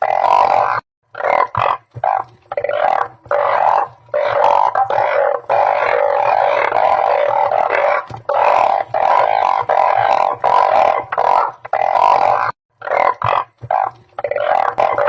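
Chorus of balloon frogs (Glyphoglossus molossus) calling, many loud overlapping calls in runs broken by brief pauses.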